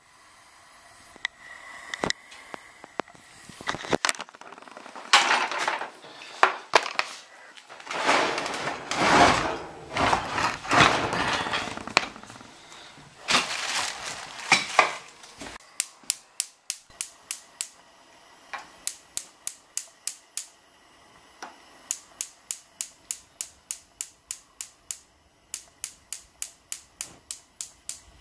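Irregular rustling and clattering, then a gas stove's electric spark igniter clicking rapidly, about four clicks a second, in several runs as the burners are lit on the new gas supply.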